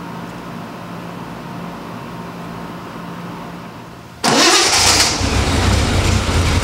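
Triumph TR6's straight-six engine starting about four seconds in, with a short burst of hiss as it catches, then settling into a steady idle. Before that, only a faint steady hum.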